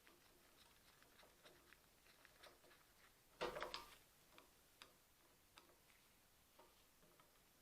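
Faint scattered clicks and taps of small carburetor parts and hand tools being handled during reassembly, with a brief louder clatter about three and a half seconds in.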